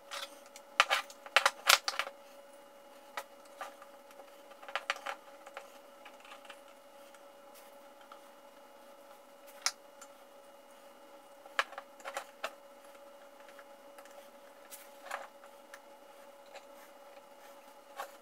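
Small metal clamps clicking and clacking against a steel axe head, a wooden handle piece and a tabletop as they are fitted and screwed tight, in scattered knocks and short clusters. A faint steady hum runs underneath.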